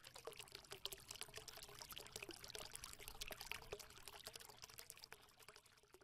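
Faint sound of liquid pouring and trickling: a dense patter of tiny ticks over a low hiss, thinning out near the end.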